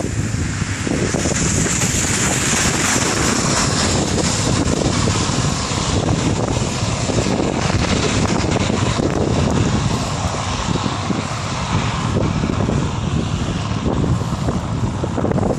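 Wind buffeting the microphone on a moving bicycle: a steady low rumble with a hiss over it that is strongest a second or two in.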